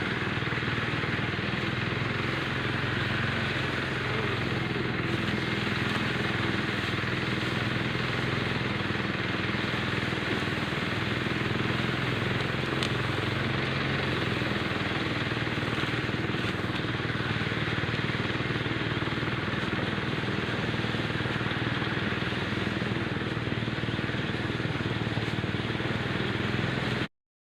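A small engine running steadily at an even pitch; the sound cuts off abruptly near the end.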